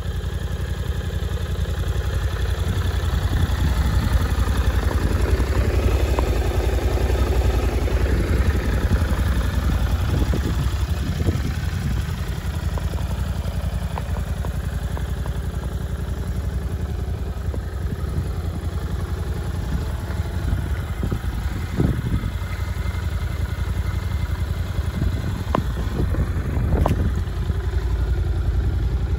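Suzuki V-Strom 800RE's 776 cc parallel-twin engine idling steadily, with a few brief clicks in the last several seconds.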